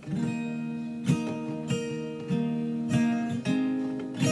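Fender DG60CE steel-string acoustic guitar strummed in chords with a capo clamped on the neck. The strumming begins at once and runs in a steady rhythm.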